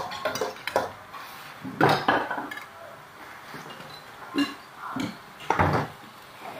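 Chopsticks and utensils clinking and knocking against a metal wok and plates: irregular clatters, with a busier spell about two seconds in and a few more knocks near the end.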